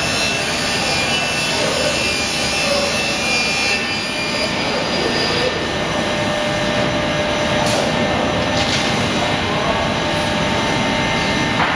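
SCM panel beam saw cutting boards, a loud, steady sawing noise over machine hum, with a couple of brief knocks about eight seconds in.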